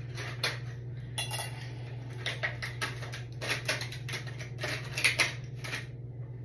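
Light metal clinking and rattling from a coiled wire spiral being turned and handled: a string of irregular small clinks.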